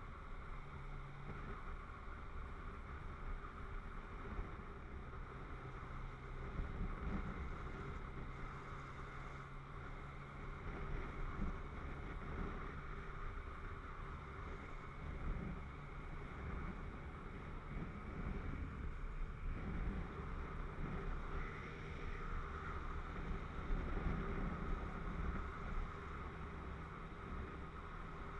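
Yamaha MT-09 motorcycle's three-cylinder engine running at a steady cruise, a low even hum under steady wind rush and road noise on the microphone.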